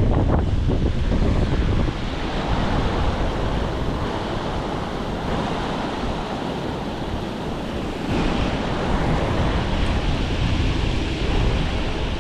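Wind buffeting the microphone, a steady rushing noise heaviest in the low end, easing about two seconds in and gusting up again about eight seconds in.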